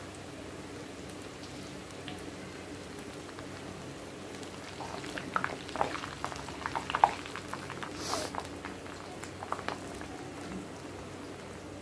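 Hot oil sizzling and bubbling as a freshly dropped batch of pakoda (gram-flour fritters) deep-fries in a kadai, with a cluster of crackles and pops in the middle and one brief hiss.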